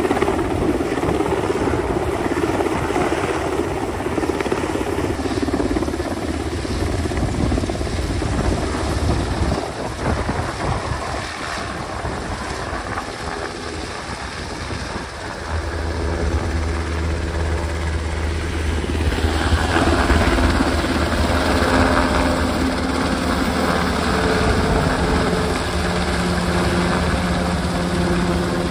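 UH-60M Black Hawk helicopter flying with an underslung load, its rotor beating steadily over the run of its twin turboshaft engines. A little past halfway, a steady engine hum comes up under it and the sound grows slightly louder as the helicopter comes nearly overhead.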